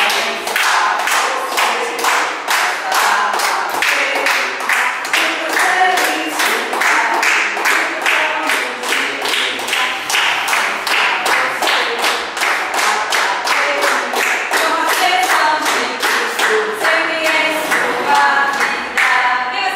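A small group singing together while clapping in a steady rhythm, about two to three claps a second.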